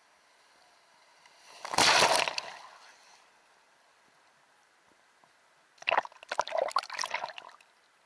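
Small sea waves washing and splashing right at a camera held at the waterline: one surging wash about two seconds in, then a run of choppy splashes near the end.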